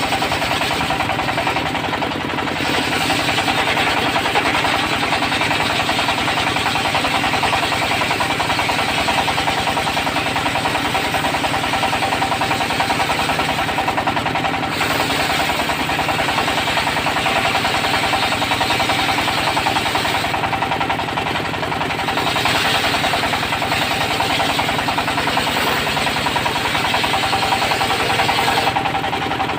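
Diesel engine running a portable circular sawmill, its saw blade cutting teak wood with a steady pulsing engine note and a high cutting hiss. The cutting hiss thins out briefly a few times.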